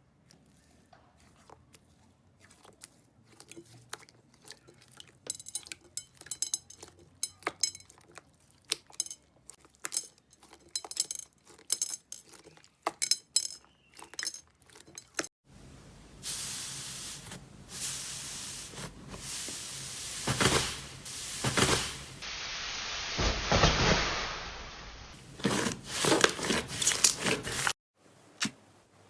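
Slime being handled: a long run of sharp, quick clicks and crackles, then, after an abrupt change about halfway, a denser and louder stretch of crackling noise with more clicks.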